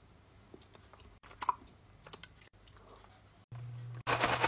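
Faint chewing and crunching of a small candy, with a sharper crunch about a second and a half in. Near the end a much louder noisy burst cuts in.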